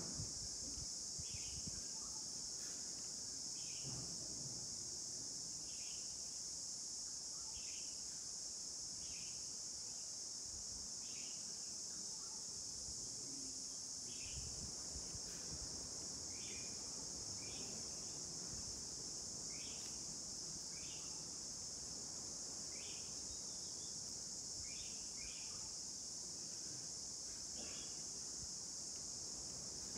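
Steady high-pitched chorus of insects, with short chirps repeating roughly once a second over it.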